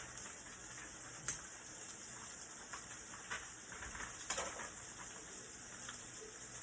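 Breakfast meat frying with a steady sizzle, with two sharp clicks about a second in and about four seconds in.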